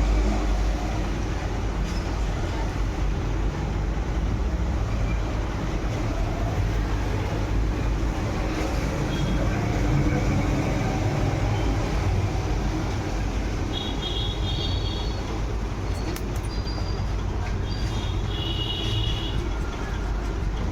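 Steady low vehicle rumble, with a few short high-pitched squeals about two-thirds of the way through and again near the end.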